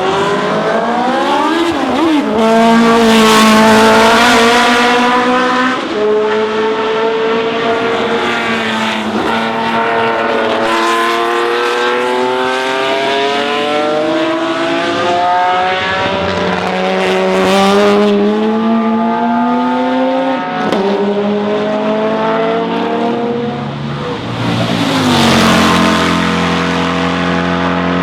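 Historic racing car engine at full throttle, climbing through the gears: the note rises steeply and drops sharply at each shift, several times over.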